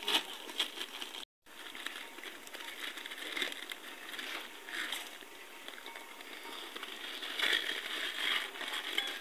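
Dry crinkling and rustling from hands handling things close by, with scattered small clicks and knocks, louder for a moment near the end; the sound cuts out completely for a split second about a second in.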